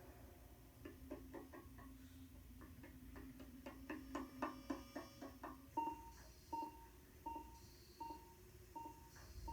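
A quick, irregular run of small clicks, then a short electronic beep repeating evenly about every three-quarters of a second, five or six times.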